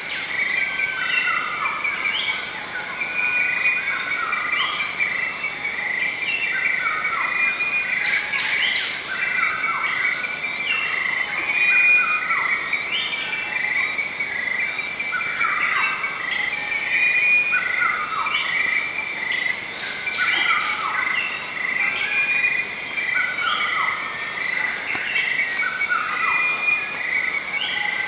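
Tropical rainforest chorus. Insects drone loud and steady at a high pitch, with a pulsing trill beneath. Over them, many short falling whistled calls come one every second or so.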